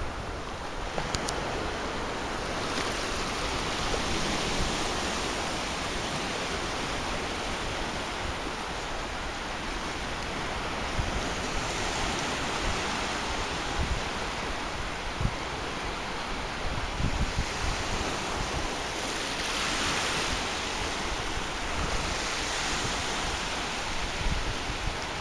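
Small sea waves breaking and washing over sandy shallows: a steady surf hiss that swells as waves break, most clearly about 12, 20 and 23 seconds in.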